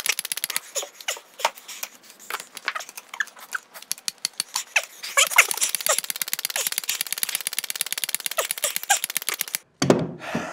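Hand grease gun pumped in a fast run of sharp clicking strokes, forcing grease into an SAF split bearing housing during its initial fill of about 200 pumps. The clicking stops abruptly near the end, followed by a loud breath out.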